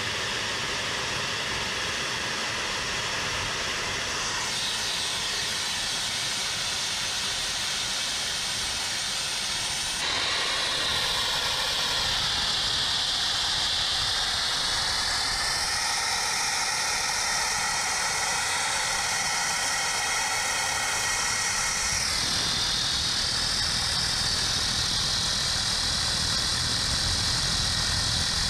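Homemade gas-fired gas turbine jet engine, built from a turbocharger, running with a steady roar and a high whine as it is throttled. The whine steps up about ten seconds in, climbs further over the next few seconds, and drops back somewhat a few seconds before the end.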